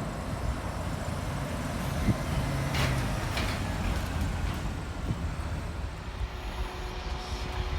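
A large vehicle running with a low rumble, with two short hisses about three seconds in and a faint steady hum starting near the end.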